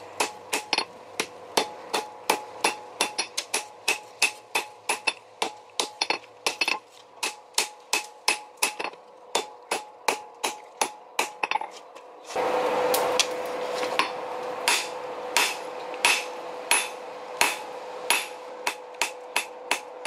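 Hand hammer striking red-hot leaf-spring steel on an anvil, forging a cleaver blade, at about two to three blows a second, each blow leaving the anvil ringing. About twelve seconds in, a steady rushing noise comes in under the blows.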